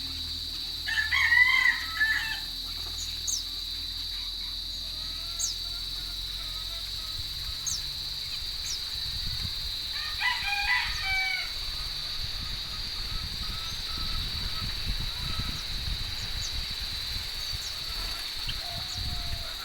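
A rooster crowing twice, about a second in and again about ten seconds in, over a steady high-pitched drone.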